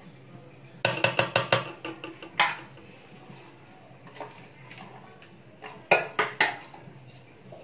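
Metal spoon knocking and scraping against the side of a large metal cooking pot while spreading boiled rice: a quick run of about six clicks a second in, one more shortly after, and another cluster of clicks about six seconds in.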